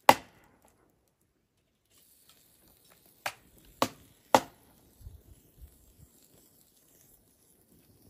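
Sharp metallic clicks and knocks as a soot-blackened metal kettle is set down and shifted on the iron grate of a wood fire: one sharp click at the start, then three more about half a second apart in the middle, followed by a few soft low thumps.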